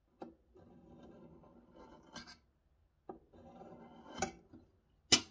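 Steel scriber drawn twice along a metal straight edge, scratching two marking-out lines into a metal plate. Each stroke lasts about a second and a half and ends in a small tick, and a sharp click comes near the end.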